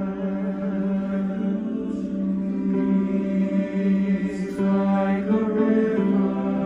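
Two voices singing a slow piece together in long held notes, the pitch moving only every second or so.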